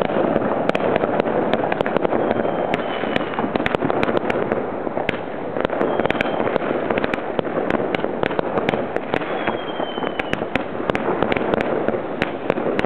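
Consumer ground fireworks going off: a steady hissing rush of sparks with dense crackling pops throughout.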